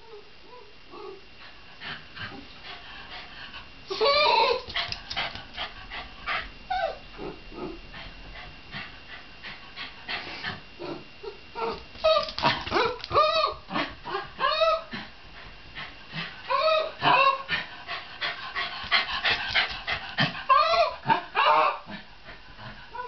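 Shiba Inu whining and yelping in many short, high calls that rise and fall in pitch. The calls come in a burst about four seconds in, then in longer, denser runs through the second half.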